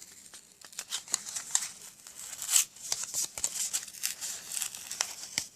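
Paper and cardstock handled up close: a quick run of short rustles, scrapes and crinkles, with a few tearing sounds, as a glued-down card layer is worked loose.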